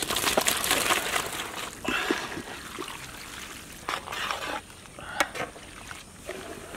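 Boiled macaroni tipped from metal bowls into a large pot of cheese sauce: a wet rush and splatter in the first second, then softer slopping in a few more pours, with a couple of sharp metal clinks.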